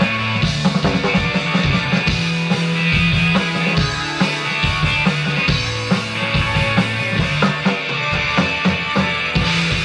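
Live rock band playing an instrumental passage, with a drum kit keeping a steady beat under held bass notes and electric guitar.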